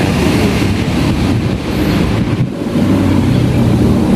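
Small diesel engine of a high-pressure washer being started and running with a low mechanical rumble. Loudness dips briefly about two and a half seconds in, then a steadier low note holds.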